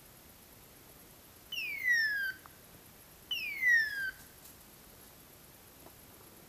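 Two loud descending screeches, each falling in pitch over just under a second, about two seconds apart: a pointing dog's beeper collar in its point (hawk-scream) mode, signalling that the dog is standing on point.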